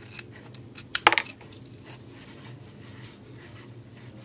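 Small steel knife parts clicking and clinking as a folding knife's blade is taken out and handled, with the loudest clinks about a second in over a faint steady hum.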